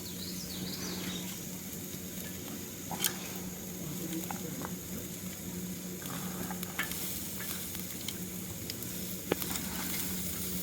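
Food sizzling as it cooks over a campfire, a steady hiss broken by a few sharp pops and crackles from the burning wood.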